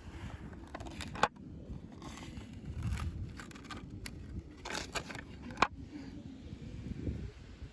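Doll packaging being handled and opened: scraping and crackling of plastic and cardboard with a few sharp clicks, the loudest about a second in and again past five seconds.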